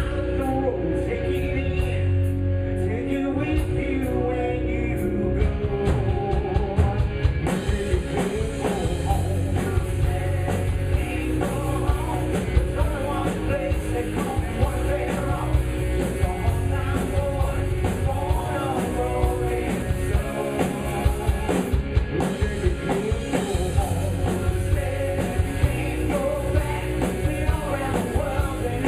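A rock band playing live, with a singer, drum kit and guitar. The sound turns brighter and fuller about seven seconds in.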